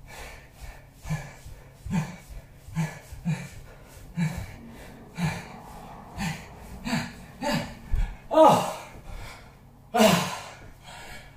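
A man breathing hard while exercising: short gasping exhales with a bit of voice in them, falling in pitch, about one a second and coming quicker toward the end. About ten seconds in there is a long, loud exhale as he stops the mountain climbers and stands bent over, out of breath.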